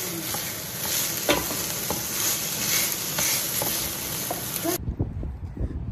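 Diced chicken sizzling in a non-stick frying pan, with a wooden spatula scraping and tapping the pan as it is stirred. Near the end the sizzle cuts off abruptly, leaving a low rumble.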